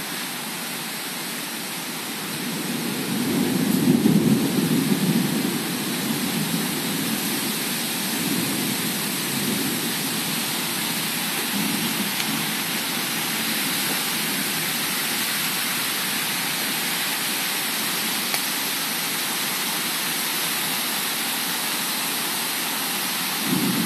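Heavy rain pouring steadily in a thunderstorm, with a low rumble swelling about three seconds in and dying away by about six seconds.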